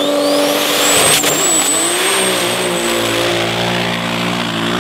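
Big-turbo six-cylinder drag 4x4 launching on sand: a high turbo whistle rises and holds over the engine, a sharp crack about a second in, then the engine pulls hard at a steady note as it runs away down the strip.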